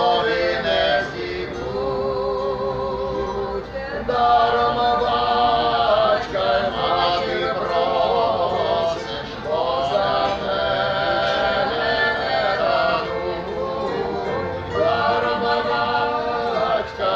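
Ukrainian folk song: voices singing long held phrases with a wide vibrato, over a string accompaniment from a lute-type instrument and a zither.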